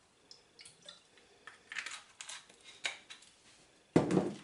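Kitchen handling noises on a worktop: a few soft clicks and taps, then one solid knock about four seconds in as something is set down.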